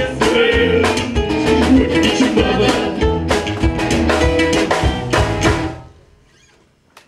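Live folk band of acoustic guitars, mandolin and drum kit playing the closing bars of a song. The music stops about six seconds in, leaving a short near-quiet lull.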